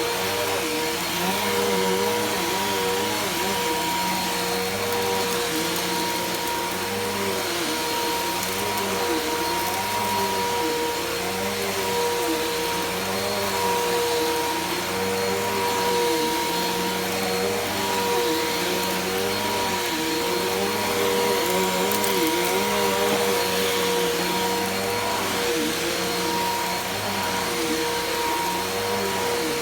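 Bissell PowerForce Helix Turbo upright vacuum cleaner running steadily while vacuuming: a constant motor whine over a rushing hiss, with a lower tone that wavers up and down every second or two.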